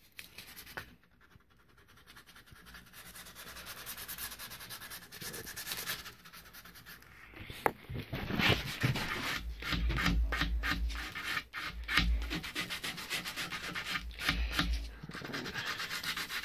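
Buffalo horn bow nock being hand-sanded with 150-grit sandpaper. It starts faint, then the rasping back-and-forth strokes build, coming fast and loud from about eight seconds in, with a few low thumps among them.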